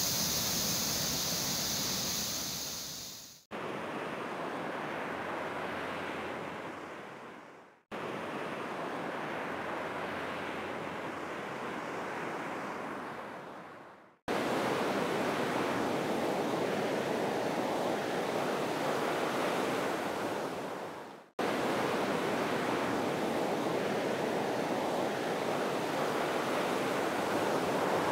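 Ocean surf washing onto a beach, with wind rushing over the microphone, in several clips joined by fade-outs and cuts; it is loudest in the second half. The first few seconds instead hold a steady high-pitched hiss.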